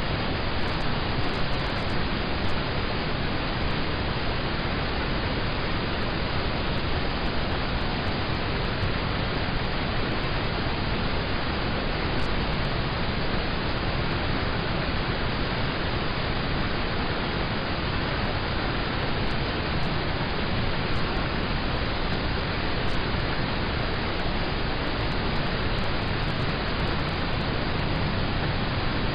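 Steady heavy rain falling on a car, heard from inside the cabin as an even, unbroken hiss.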